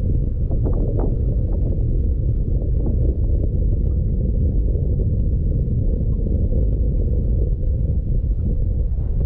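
Wind buffeting the camera microphone on open water: a steady low rumble. A few faint ticks come in the first second or so.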